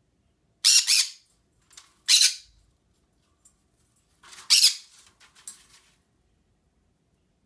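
Green-cheeked conure giving harsh, loud squawks: two short ones about a second apart, then a longer double squawk a couple of seconds later, followed by a few soft chirps.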